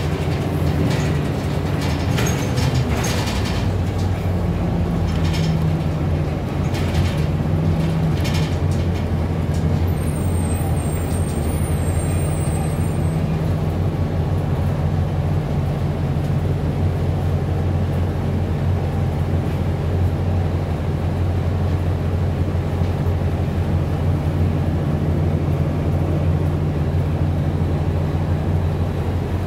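Interior sound of a moving city bus: the engine and drivetrain running with a steady low drone, and a few short clicks in the first eight seconds.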